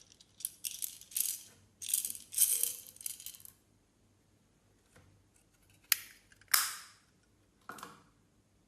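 Clear slime being handled with small add-ins mixed in: irregular bursts of crackling and rattling through the first few seconds, then a few sharp clicks and short crackles near the end.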